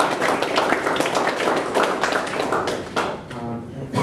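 Audience applauding with many hands clapping; the applause dies away about three seconds in, as a man's voice begins.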